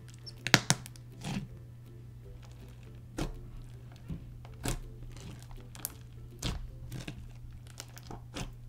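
Fishbowl slime packed with clear fishbowl beads being pressed and poked by fingers, giving irregular sharp bubble pops and crackles about once a second, the loudest just after the start. A steady low hum runs underneath.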